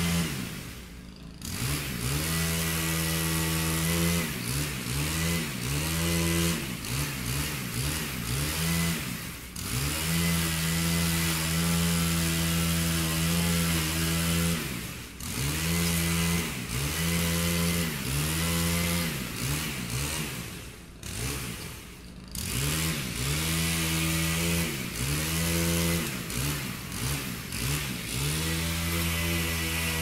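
Chainsaw engine running at high revs while cutting branches. Every few seconds it drops in pitch and revs back up, about six times.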